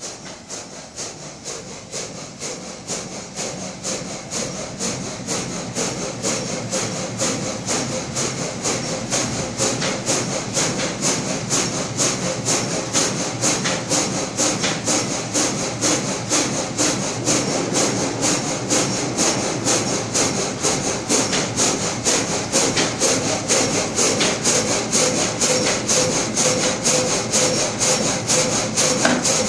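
Multi-blade frame saw (gang saw) in a traditional sawmill, its blades working up and down through a log in an even rhythm of about two to three strokes a second, growing louder as it is approached.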